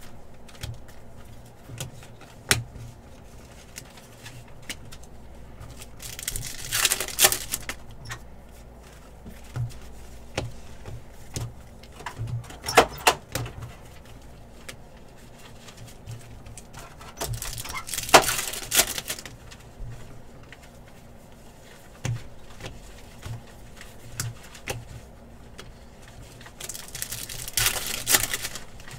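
Trading card packs being torn open by hand: four crackling bursts of foil wrappers ripping and crinkling, with small clicks and taps of cards being handled and laid down in between.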